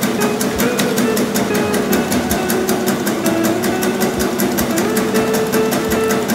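Stainless-steel bakso (meatball) forming machine running steadily: a motor hum under a fast, even clatter of the forming mechanism, about six clicks a second.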